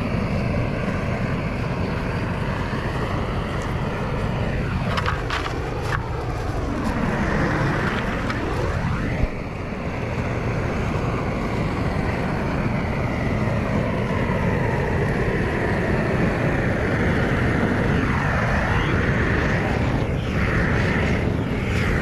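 Long-wand propane torch burning steadily while charring wood trim, its tone sweeping up and down now and then. A short sharp click about nine seconds in.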